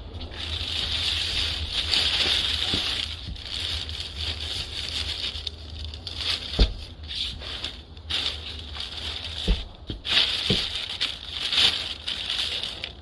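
Large plastic construction bag crinkling and rustling as it is handled, with a couple of sharp knocks about six and nine and a half seconds in.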